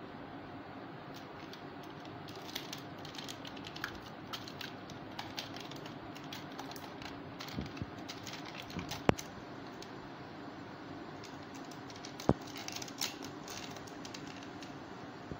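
Plastic toys being handled, with scattered light clicks and clatter over a steady low hum, and two sharper knocks: one about nine seconds in and another about three seconds later.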